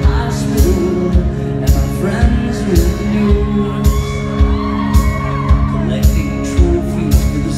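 Live band playing loudly in a large hall, with a steady kick-drum beat about twice a second under a singing voice.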